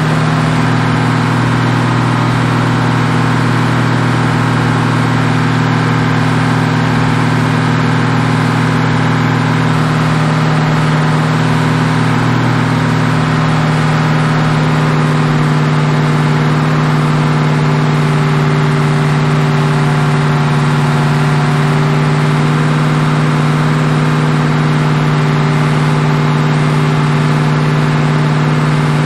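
Mopar 440 big-block V8 running steadily, a constant loud drone with no change in engine speed, while its new camshaft is being run in.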